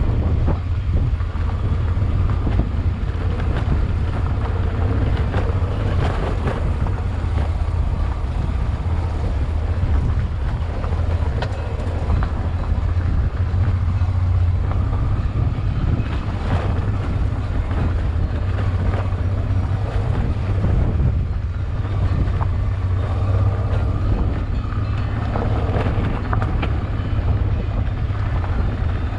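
Honda Transalp XL600V's V-twin engine running steadily under way, with wind buffeting the microphone and scattered clicks and knocks throughout.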